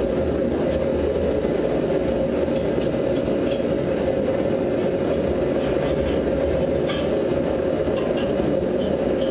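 Benchtop power hammer running with its electric motor and belt drive going, a steady mechanical hum with a constant tone and no distinct hammer blows. A few faint ticks come through.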